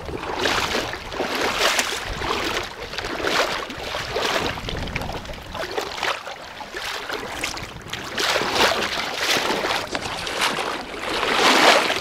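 Wading footsteps through shallow seawater in thigh-high rubber wading boots: a swishing splash with each stride, about one a second, loudest near the end.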